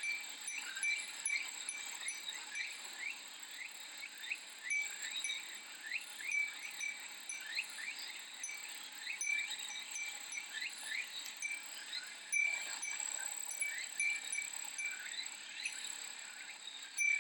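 Cicadas singing in a steady high drone with many short rising calls, and a Japanese wind chime (fūrin) tinkling now and then.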